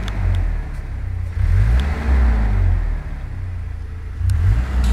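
Pickup truck engine revved in repeated rises of the gas pedal, heard from inside the cab, to push more charge into a riding lawn mower's dead battery hooked up to it.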